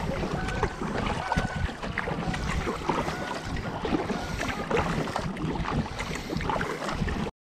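Kayak paddling on a river, with wind buffeting the microphone.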